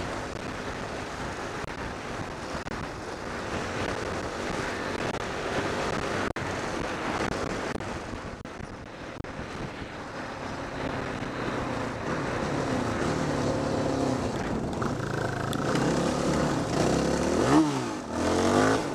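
Dirt bike engine running under way, its pitch rising and falling with the throttle, under heavy wind noise on the microphone. Near the end the revs drop sharply and climb back again.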